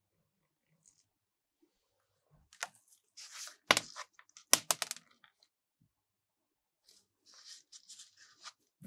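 Ice-cream-roll making: short scrapes and rustles, with two sharp clicks a little under a second apart about four seconds in, and another run of short scrapes near the end.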